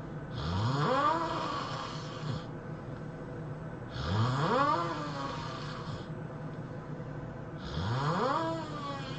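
A person snoring: three long snores about every four seconds, each sliding upward in pitch from a low rattle, with a breathy hiss.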